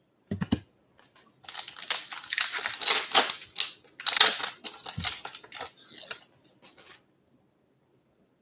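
A baseball card pack's wrapper being torn open and crinkled by hand: several seconds of crackling rips that stop a second or so before the end. A short thump comes about half a second in.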